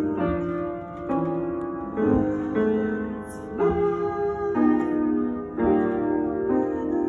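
Instrumental background music led by piano, its chords changing about once a second.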